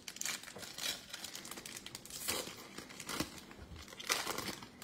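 A Panini Chronicles football card pack's wrapper being crinkled and torn open by hand, in several irregular bursts of crackling.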